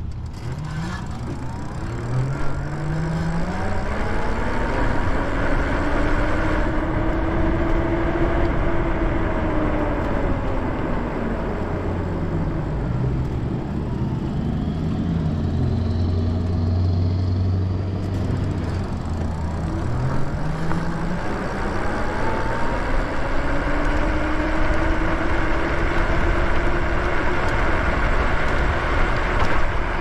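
Lyric Cycles Graffiti e-bike's electric motor whining under way, its pitch climbing as the bike speeds up, dropping as it slows near the middle, then climbing again, over a steady rush of wind and tyre noise.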